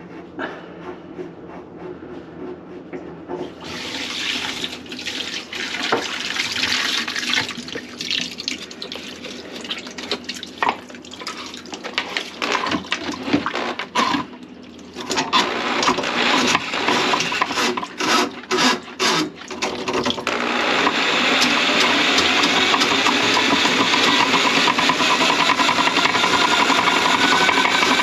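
Water running into a kitchen sink that is plugged with grease, splashing unevenly with knocks and short breaks, then running steadily and louder from about twenty seconds in.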